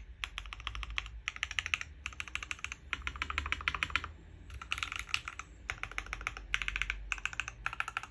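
RAMA Zenith custom mechanical keyboard with Jwick Black linear switches, a stock aluminium plate and PE foam, being typed on fast. The keystrokes come in quick runs separated by brief pauses.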